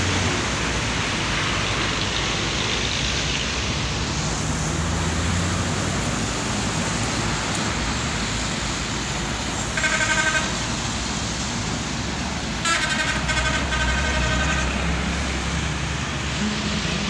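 Road traffic on a rain-wet road: a steady hiss of tyres and spray with a low engine hum. A vehicle horn sounds twice, briefly about ten seconds in and again for about two seconds around thirteen seconds in.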